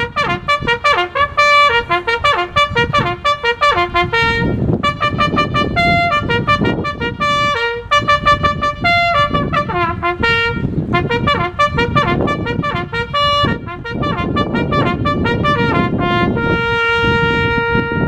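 A bugle call played on a single brass horn: quick runs over a few open notes, ending on one long held note about a second and a half before the end.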